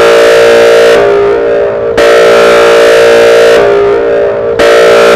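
Whelen 4004 electronic outdoor warning siren sounding a loud, steady multi-tone signal. It restarts sharply about every two and a half seconds and eases off a little before each restart, then cuts off near the end and trails away over about a second.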